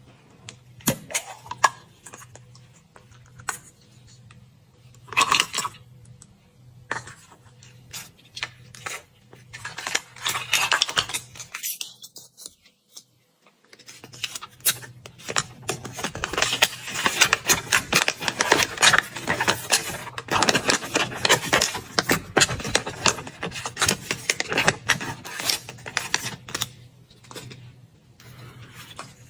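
Chocolate-egg packaging being handled and unwrapped: crinkling wrapper and clicking plastic. It comes in scattered clicks and rustles at first, breaks off briefly about halfway, then becomes dense, continuous crinkling for most of the second half.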